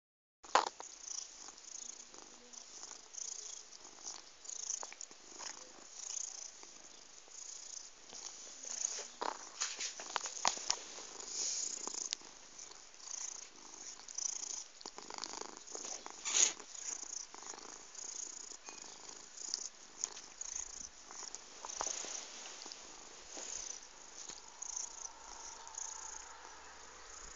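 Domestic cat purring close to the microphone, swelling and fading in uneven waves about once a second, with a few sharp clicks or rustles mixed in.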